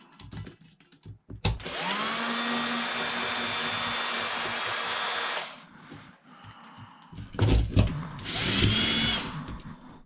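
Cordless drill-driver backing screws out of a cash register: the motor spins up and runs steadily for about four seconds, then a few knocks, then a second short run of about a second.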